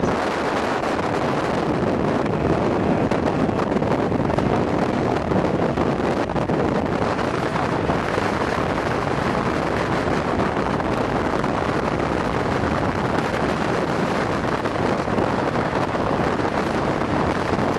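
Steady rush of wind buffeting the microphone, mixed with road and engine noise, heard from inside a moving car at speed.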